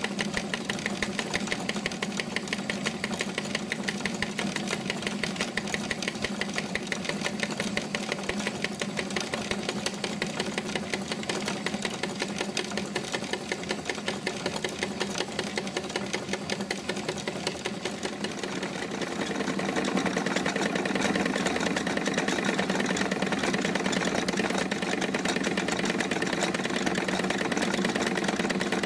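Wilesco D-20 miniature steam engine running, with its line shaft and belt-driven toy machine tools: a fast, even mechanical clatter that grows louder about two-thirds of the way in.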